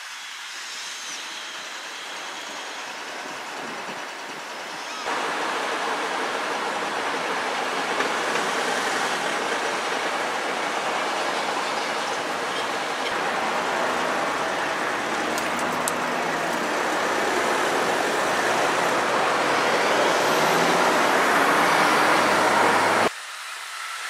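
Liebherr R 936 crawler excavator working: its diesel engine running under load with the rush of hydraulics, and a faint knock now and then. It steps up sharply in loudness about five seconds in and drops off abruptly near the end.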